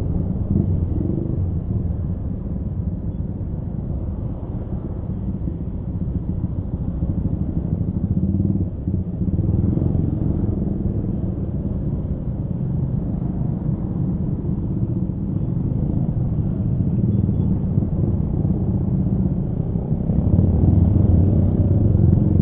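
Honda Scoopy scooter engine running while being ridden, a steady low rumble mixed with road noise, growing louder about twenty seconds in.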